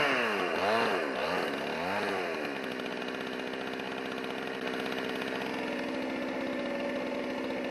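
Two-stroke chainsaw running: its engine pitch dips and climbs again several times over the first couple of seconds, then it settles to a steady, even run.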